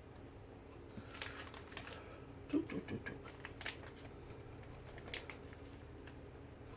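Food-prep handling at the counter: scattered crinkles of packaging with soft clicks and taps, and a short cluster of duller knocks about two and a half seconds in.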